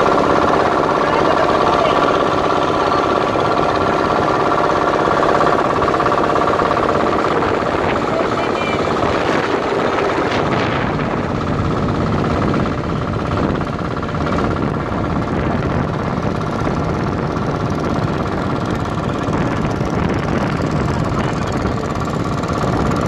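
Small wooden boat's engine running steadily under way; about ten seconds in its steady tones weaken into a rougher, noisier sound.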